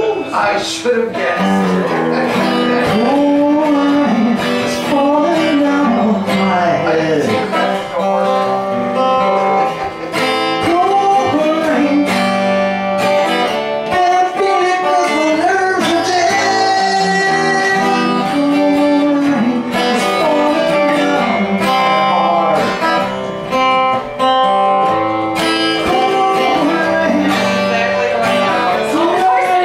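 Live folk-rock song: a woman singing to her own guitar accompaniment.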